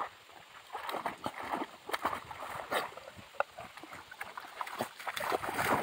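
A puppy wading and splashing through shallow lake water, irregular sloshing and splashes that grow louder near the end.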